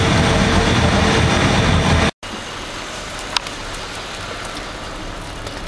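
Loud low rumble and wind noise on a car ferry's open deck. After an abrupt cut comes a quieter steady vehicle hum with one sharp click about three and a half seconds in.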